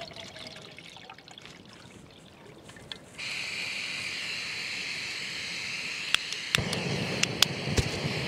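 A last faint trickle of water pouring from a hydration bladder into a Jetboil cup, then the Jetboil's gas valve opens with a sudden steady hiss about three seconds in. A few sharp igniter clicks follow, and the burner lights, adding a deeper steady rush of flame under the hiss.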